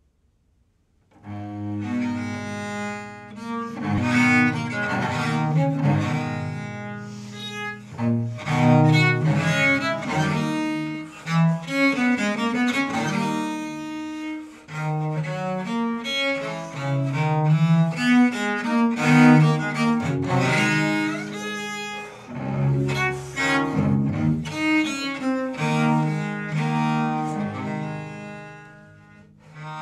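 Solo bass viola da gamba played with a bow, starting about a second in: a slow line of bowed notes with several strings often sounding together in chords.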